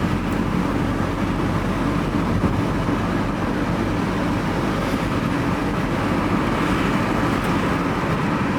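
Steady engine and road noise of a van being driven, heard from inside the cab.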